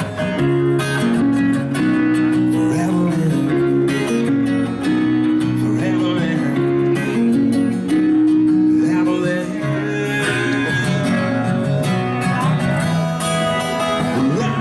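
Music led by a plucked guitar, playing continuously.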